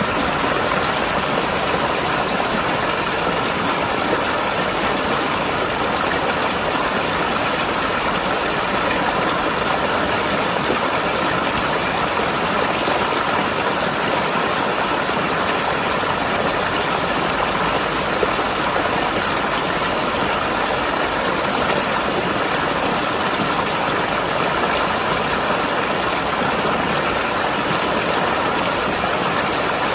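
Mountain river flowing over rocks: a steady, even rush of water with no change throughout.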